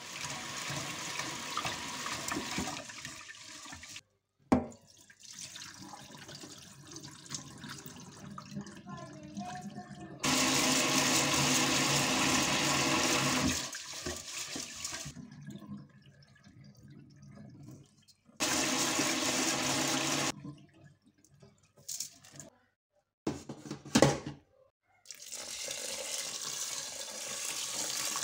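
Tap water running into a rice cooker's pot in a stainless steel sink while a hand swishes rice grains in it to rinse them. The water comes in several separate spells with short silent gaps, and there is a sharp knock about four and a half seconds in and another near the end.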